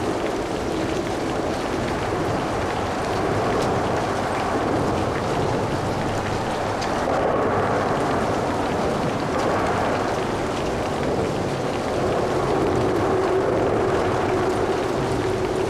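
Steady rain with light traffic noise from vehicles on wet roads, a continuous hiss and rumble that swells and eases a few times as traffic passes.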